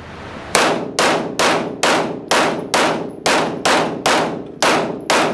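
Semi-automatic pistol fired in a steady string of about eleven shots, a little under half a second apart, each shot echoing off the walls of an indoor range.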